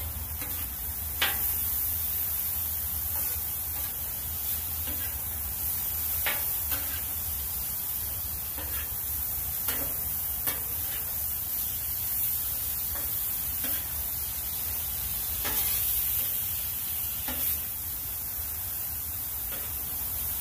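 Sliced steak, peppers and onions sizzling on a hot flat-top griddle, with a metal spatula scraping and clacking on the steel every few seconds as the meat is chopped and turned. A steady low rumble runs underneath.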